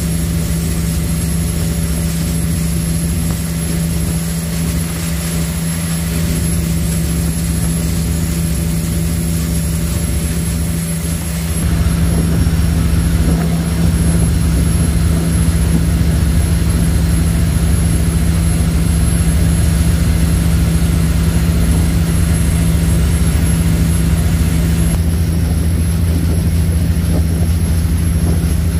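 Steady engine drone of a high-speed passenger ferry under way, a constant low hum that grows louder about twelve seconds in.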